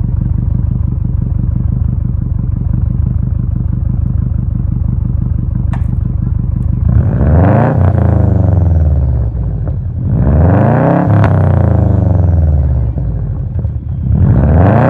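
Bugeye Subaru WRX's turbocharged flat-four idling steadily, then revved in three blips, the last starting near the end. On each lift-off there is a falling whistle and turbo flutter: compressor surge, which the owner says will kill the turbo unless a blow-off valve is fitted.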